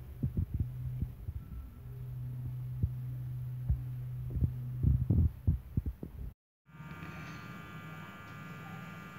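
Low thumps and rumble from a phone and cloth being handled, over a steady low hum. A brief dropout about six seconds in, then only a steady hum.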